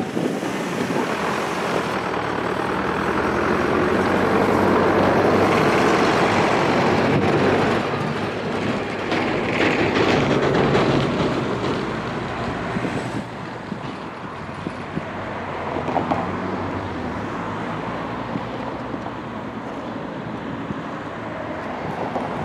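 Queued cars driving away over a railway level crossing after the barriers lift. Engine and tyre noise swells for the first several seconds as the cars pass close, then fades.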